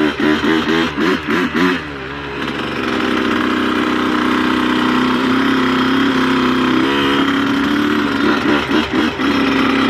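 Dirt bike engine revving up and down in quick blips, then running at a steady, even pitch from about two and a half seconds in, with a few more quick revs near the end.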